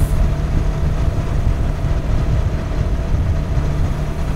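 Kawasaki Versys 650's parallel-twin engine running at a steady highway speed of about 100 km/h, its throttle held by an electronic cruise control. The engine's even note sits under a steady rush of wind and road noise.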